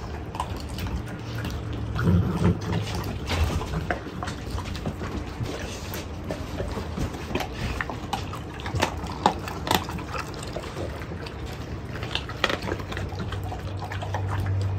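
Mastiffs eating raw chicken: wet chewing and smacking, with many short, irregular crunches and cracks.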